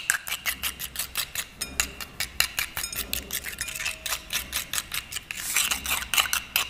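A metal spoon beats egg yolks in a clay bowl, clicking against the bowl in a quick, steady rhythm of about five or six taps a second.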